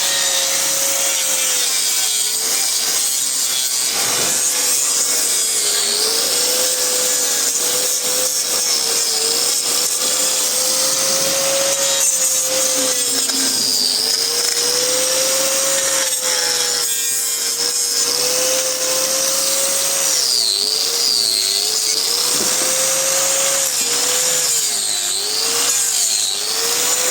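Hand-held power grinder trimming a cow's hoof, running steadily, its motor pitch sagging again and again as it bites into the hoof horn.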